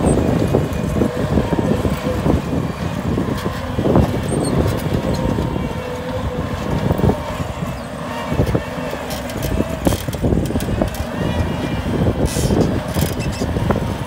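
Bobcat compact track loader's diesel engine running under load as it pushes and grades dirt with its bucket, with scattered clanks and knocks.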